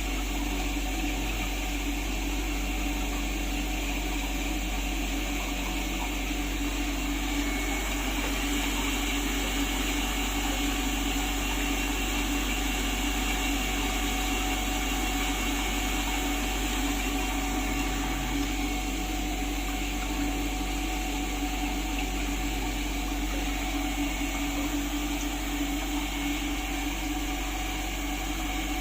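Centrifugal humidifier running steadily: an even motor hum with a hiss over it.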